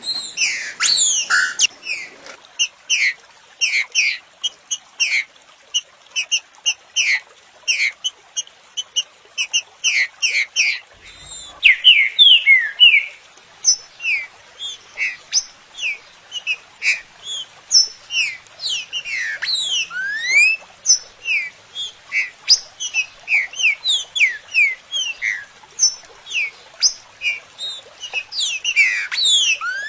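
Green-winged saltator (trinca-ferro) song: a fast, almost unbroken run of short, clear whistled notes, many sliding up or down in pitch. It is a stimulator recording of the kind played to captive trinca-ferros to spur them to sing.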